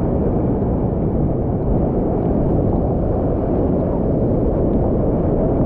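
Waterfall water rushing and crashing: a loud, steady rush with a deep low end.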